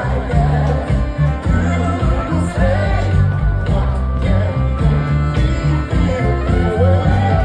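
A song with a woman's or man's sung lead over guitar, bass and drums, with a steady beat.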